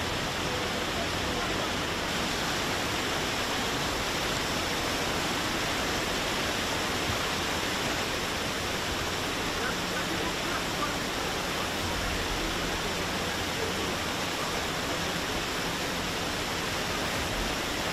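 Fast-flowing floodwater rushing through a flooded street: a steady, even rush of water.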